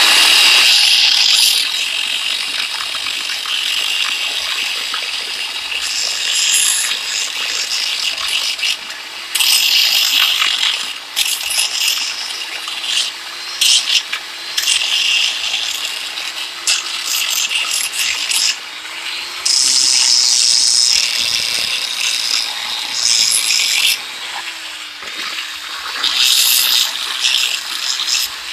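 Angle grinder's abrasive disc grinding against a steel adjustable wrench: a loud, hissing grind that swells and eases again several times, with the grinder's motor hum underneath.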